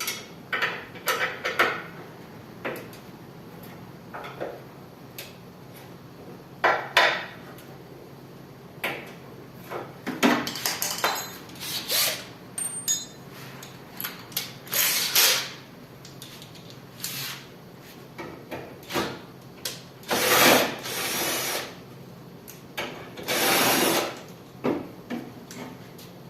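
An 8 mm socket tool undoing the four mounting bolts of a window air conditioner's fan motor: scattered metal clicks and knocks, with a few second-long rasping runs of the tool, the longest near the end.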